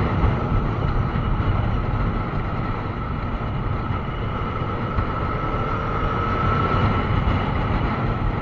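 Motorcycle riding at a steady speed, recorded by its onboard camera: wind rushing over the microphone with the engine running underneath and a steady high whine.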